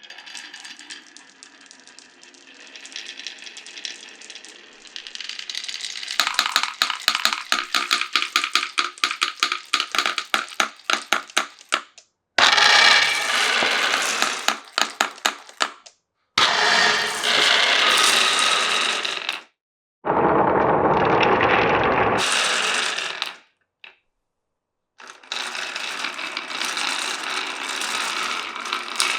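Glass marbles rolling and clattering through a wooden marble run. It opens with a light rattle, then from about six seconds a fast run of sharp clicks. Several stretches of dense rolling noise follow, each stopping abruptly with a short silence between them.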